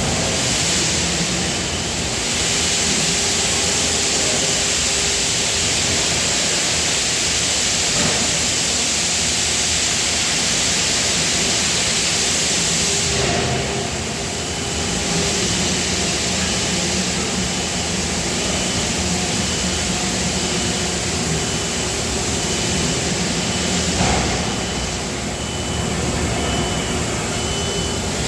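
Steady, loud factory machinery noise with a strong hiss. From about halfway, a faint beep repeats roughly once a second.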